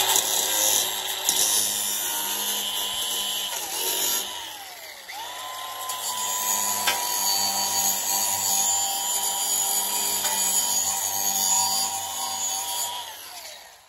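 DeWalt angle grinder running with its disc on steel, cleaning the metal off ahead of tack welding. About four seconds in its whine drops away and then winds back up, and it runs down near the end.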